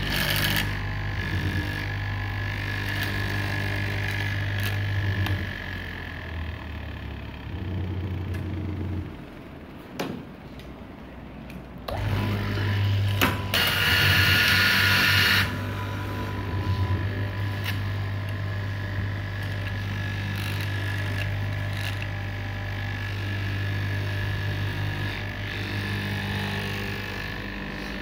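Straight-knife cloth cutting machine's electric motor running with a steady hum and a thin whine as its reciprocating blade cuts through a deep stack of fabric. The hum drops away about nine seconds in and comes back about three seconds later. A loud, harsh rasping burst follows for about two seconds.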